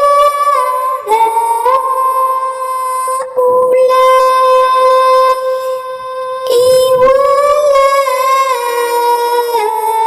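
A high-pitched voice chanting Quranic recitation in long held notes with sliding melodic ornaments, broken into a few phrases.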